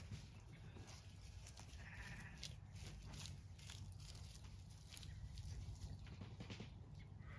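Faint sounds of Zwartbles rams close by: scattered soft clicks over a low rumble of wind.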